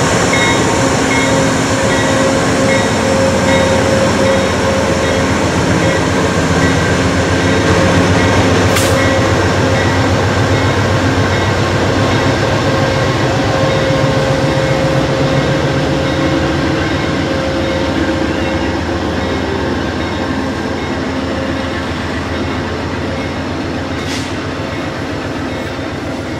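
Amtrak passenger train going by: a GE Genesis P42DC diesel locomotive running with a steady engine drone, then Superliner bi-level cars rolling past on the rails. The sound eases off slightly toward the end.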